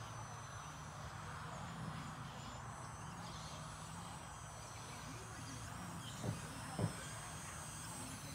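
Faint, steady drone of a distant radio-control model airplane's engine, its pitch shifting a little. Two short sharp sounds come close together about six and seven seconds in, the second louder.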